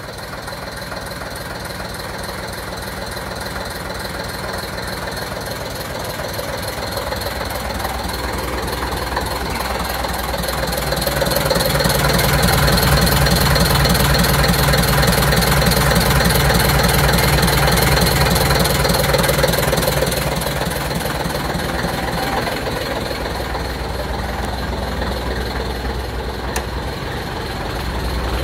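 Diesel engine of a half-cab double-deck bus running at idle with a steady low beat, just after its fuel injection pump and injectors were remanufactured. It grows louder for a stretch in the middle, then eases back.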